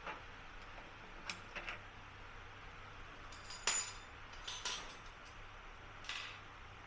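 A few short metallic clinks and taps of tools and metal parts being handled, with a low steady hum beneath. The loudest clink, about three and a half seconds in, rings briefly.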